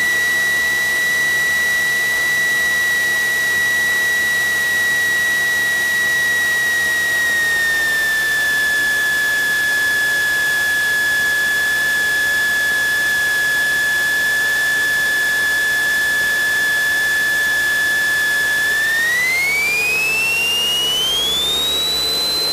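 Steady high electrical whine from the Cessna 172's alternator, picked up in the intercom recording, its pitch following engine RPM. It steps slightly lower about seven seconds in, then climbs smoothly to about twice its pitch near the end as the throttle is opened for takeoff.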